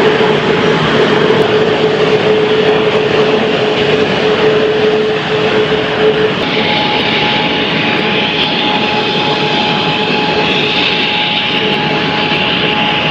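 Jet aircraft engines running loud and steady. A whine rides over the roar and, about six seconds in, gives way to a higher whine with a brighter hiss.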